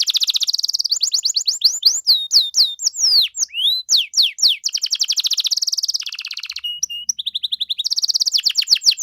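Domestic canary singing continuously: long, very fast trills alternating with runs of quick down-sweeping whistled notes, with a brief change to a lower rattling trill about three quarters of the way through.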